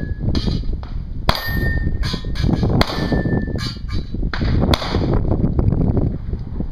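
Colt 9mm submachine gun fired as a string of single shots, about eight, spaced roughly half a second to a second apart, with steel targets ringing briefly after some of the hits.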